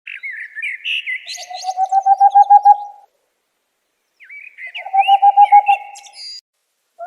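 An owl giving two rapid series of short hoots, about seven a second, each series growing louder, with a pause of about a second between them. Small birds twitter higher above the hoots and at the very start.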